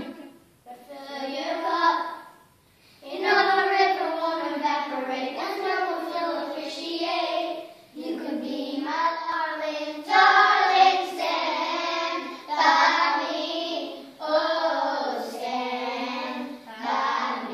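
Children singing together without instruments, in long phrases broken by short pauses.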